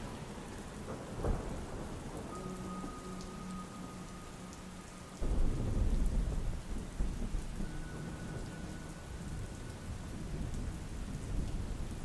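Steady rain falling, with a sudden deep roll of thunder breaking in about five seconds in and fading over the next few seconds; a single sharp thump comes about a second in.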